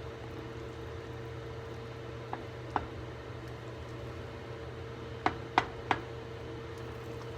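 Steady background hum with a few short sharp clicks of a spoon against the pot of cornmeal mush. Two light clicks come about two and a half seconds in, and three louder ones follow in quick succession a little past five seconds.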